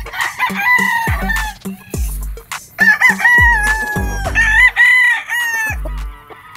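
Gamefowl roosters crowing, three long crows one after another, each trailing off at the end. A deep electronic bass beat runs underneath.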